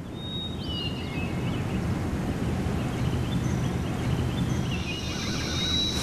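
Steady outdoor ambience: a wind-like rush that swells gently in the first seconds, with a few faint thin high whistles near the start and again in the second half.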